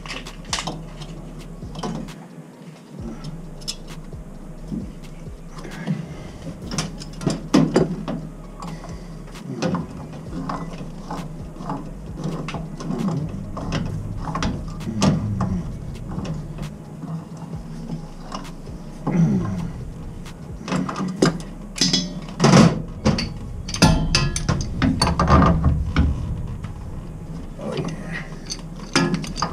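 Metal hand tools and pipe fittings: irregular clicks, clanks and scrapes as a fitting on a boiler is turned by hand and then worked with a wrench, over a low steady hum.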